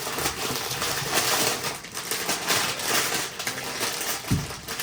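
Crinkling and rustling of packaging being handled, with a low thump near the end.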